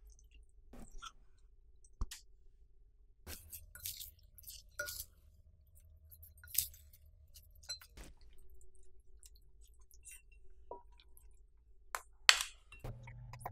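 Wooden spatula tossing dressed shredded cabbage in a glass bowl: soft crunchy rustling of the cabbage with scattered light clicks and clinks against the glass. Background music starts near the end.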